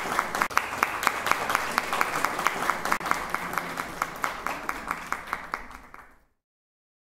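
Audience applauding after a piano performance, with dense claps that fade out about six seconds in.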